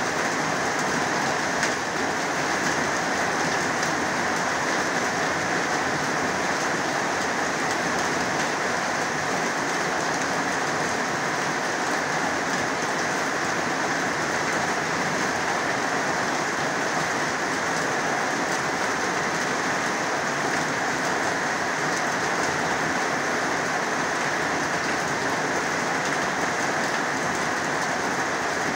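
Heavy rain falling steadily: an even, unbroken rush of rain with no let-up.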